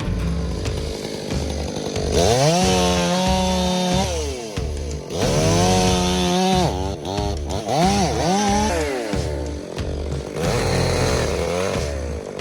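Chainsaw revving up to full throttle, holding as it cuts, then dropping back: two long cuts and a few shorter blips. Background music with a steady beat plays along with it.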